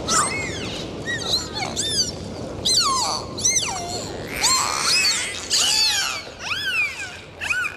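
Many short animal cries, each rising and then falling in pitch, often overlapping, over a steady wash of breaking surf.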